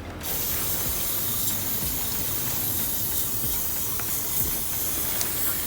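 Aerosol air flow meter cleaner sprayed in one long steady hiss onto the air flow meter sensor to wash black deposits off it, stopping near the end.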